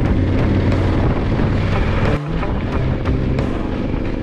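Motorcycle riding noise with wind buffeting the microphone, mixed with the instrumental backing of a rock song. The level dips briefly about two seconds in.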